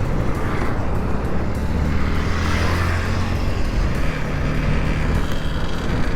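Bajaj Pulsar NS motorcycle engine running on its stock exhaust while being ridden. The engine note rises about four seconds in.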